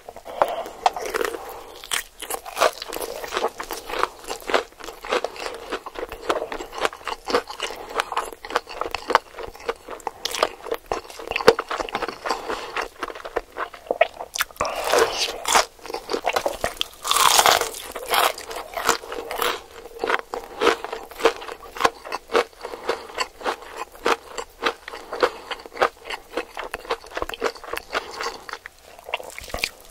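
Crisp fresh vegetable stems being snapped and peeled by hand: a dense run of sharp crunchy snaps and tearing, with a couple of louder, longer tears about halfway through.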